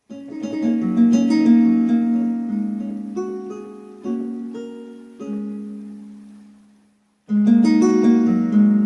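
Synthesizer playing a plucked-string sound: a quick cascade of notes ringing into a decaying chord, then a few single notes that fade away, and a fresh cascade begins after a short silence near the end.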